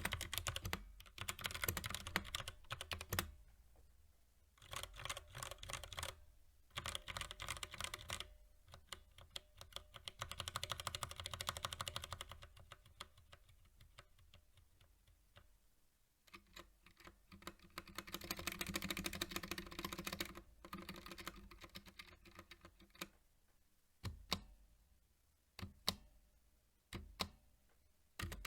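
Typing on a mechanical keyboard with Outemu Brown tactile switches: runs of fast keystrokes broken by short pauses, ending with a few single, separate key presses.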